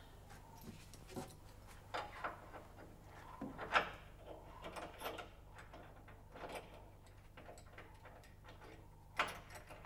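Scattered quiet clicks and light knocks of hands fumbling at a door lock, the sharpest click about a third of the way in and another near the end.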